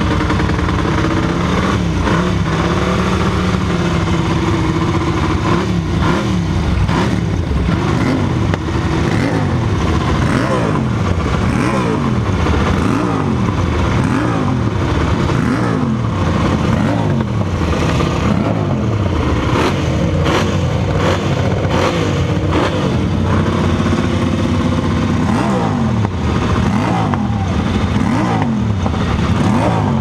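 A vintage Ducati race motorcycle engine running and being revved by hand. The revs climb and drop again about once a second, with a spell of steadier running in between.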